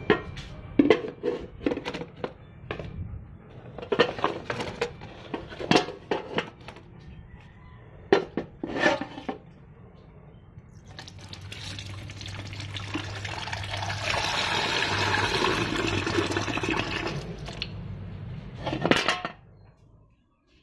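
Metal basins and pails clattering and knocking, then water rushing for about eight seconds, building up and then stopping, with a sharp knock just before it ends.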